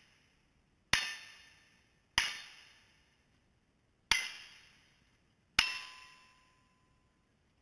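Four gunshots about one to two seconds apart, each trailing off in a metallic ring that lasts about a second, with the ring of the steel targets being hit.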